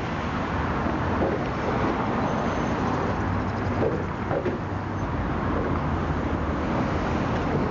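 Steady wash of freeway traffic noise from the many cars and trucks on the I-405.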